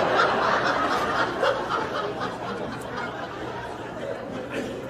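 Audience laughing, loudest at first and dying down over a few seconds.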